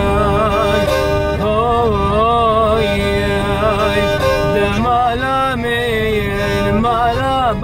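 Kamancheh (spike fiddle) bowed in a winding, ornamented Kurdish folk melody with vibrato, over a steady low hum.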